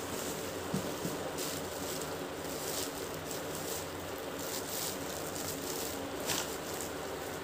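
Clear plastic packaging bag crinkling and rustling as it is handled, in irregular bursts, over a steady hum.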